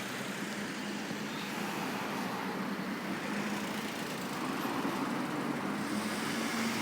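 Road traffic on a city street: cars passing, a steady wash of engine and tyre noise that grows slightly louder toward the end.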